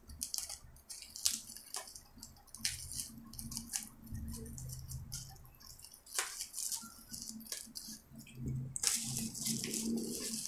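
Scissors snipping through plastic bubble wrap in a few scattered, separate cuts, then the plastic crinkling as it is pulled open by hand near the end.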